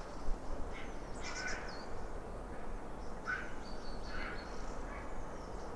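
A series of short calls from an unidentified animal, taken for some kind of bird, coming about once a second with gaps, five or six in all.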